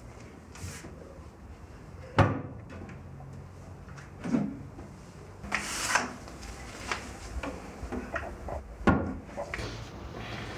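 Wooden kitchen cupboard door opened and shut and ceramic mugs handled and set down on the counter: a string of knocks and clicks, the sharpest about two seconds in and another near nine seconds in, with a brief scrape as a mug is slid out.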